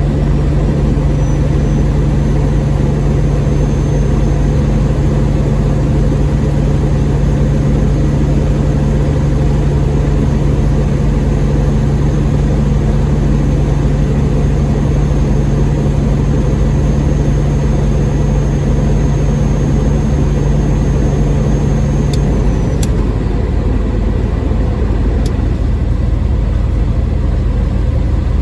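Semi-truck's diesel engine running with a steady drone. A steady hum and a faint high whine cut off together about 22 seconds in, followed by a few clicks.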